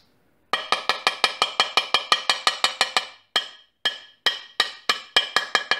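Ball-peen hammer giving light, rapid taps to a steel shaft being press-fitted into the ball bearing of an aluminum torque-converter mounting plate, about six taps a second, each with a short metallic ring. Around the middle the tapping slows to a few single taps, then speeds up again. The taps are driving the shaft's step into the bearing until it seats against the bearing race.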